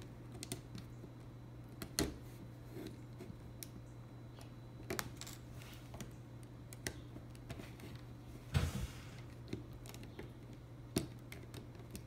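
Plastic LEGO bricks and tiles of a puzzle box clicking and clacking as they are pushed and slid by hand: scattered sharp clicks, a second or more apart. About eight and a half seconds in comes a longer, louder scraping clack.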